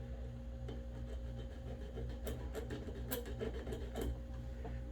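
Steady low electrical hum with a few faint, scattered clicks of small parts and tools being handled on a workbench; no hammer blows yet.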